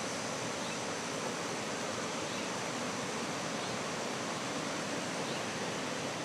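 Steady, even hiss of outdoor background noise, with a faint thin high tone running through it.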